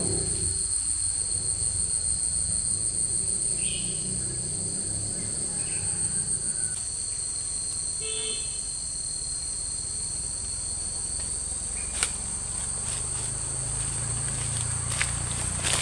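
Steady high-pitched insect chorus holding two constant pitches, with a few short chirps and a sharp click about twelve seconds in.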